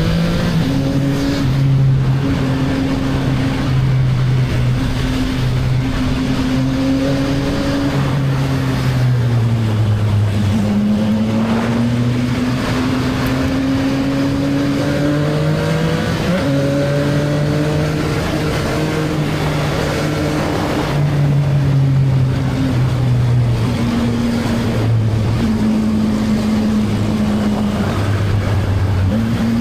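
CFMoto 675NK motorcycle's three-cylinder engine with its stock exhaust, under way. The engine pitch climbs steadily and then drops several times as the rider accelerates and changes gear, over a constant rush of wind and road noise.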